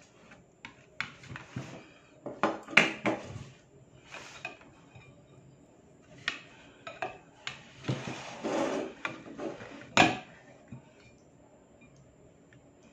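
Metal knife and serving utensil clinking and scraping against a ceramic plate as pieces of teriyaki chicken are lifted off it. There are irregular sharp clanks, the loudest about three seconds in and again about ten seconds in, with a longer scrape just before the second.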